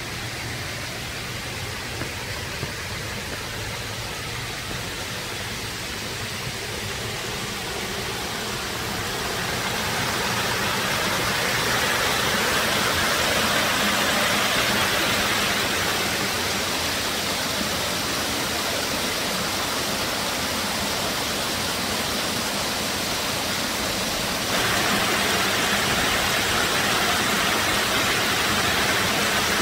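Water of a shallow rocky stream rushing over stone, then a small cascade splashing down a stone weir into a pool. The rush grows louder about ten seconds in and jumps louder again suddenly near the end.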